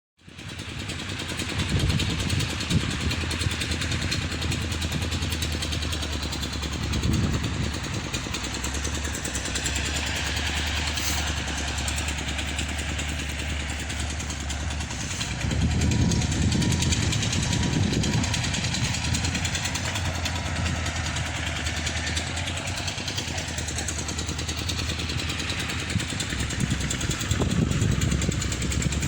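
Engine of a tin-mining suction pump rig running steadily, with its low rumble swelling louder a few times.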